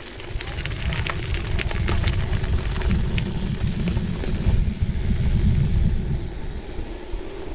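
Mountain bike rolling downhill over a gravel and tarmac path: a steady low rumble of wind and tyres on the riding camera's microphone, with scattered rattles and clicks from the bike over the rough surface.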